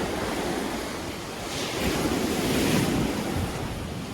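Ocean surf washing onto the shore, with wind buffeting the microphone; a wave surges louder about a second and a half in and eases off before the end.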